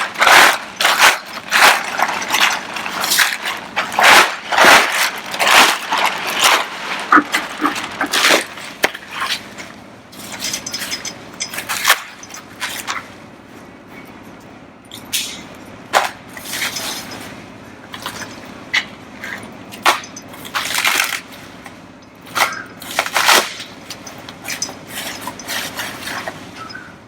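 Handling a plastic front-bumper trim piece: irregular clacks, knocks and rustles, thick and fast for the first third, then scattered single knocks.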